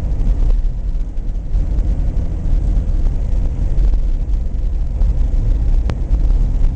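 Steady low rumble of a vehicle being driven, heard from inside the cabin: engine and road noise on a snow-covered highway. A single sharp click comes near the end.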